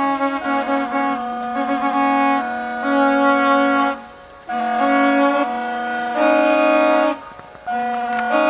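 Instrumental music of long held melodic notes, changing every second or so and breaking off briefly twice.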